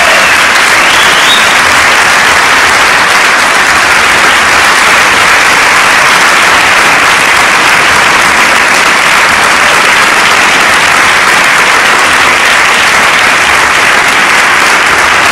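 Large theatre audience applauding: dense, steady clapping from many hands.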